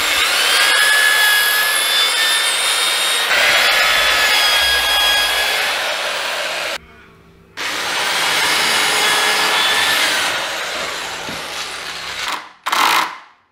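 Corded electric drill boring into timber, its motor whining as it spins up and cutting steadily. Two long runs with a short pause between, then a brief burst near the end.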